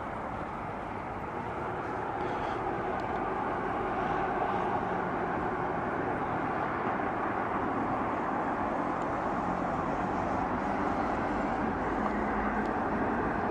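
Steady rushing noise of road traffic from the highway bridge, rising a little a few seconds in.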